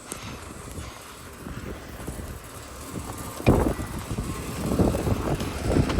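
Storm wind buffeting the microphone: lighter at first, then a strong gust hits suddenly about halfway through and keeps rumbling in surges.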